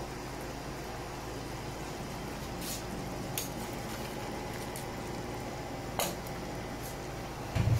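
Coconut-milk sauce simmering in a pan, a steady low bubbling hiss. A few faint clicks come as whole raw shrimp are laid in, and there is a short low thump near the end.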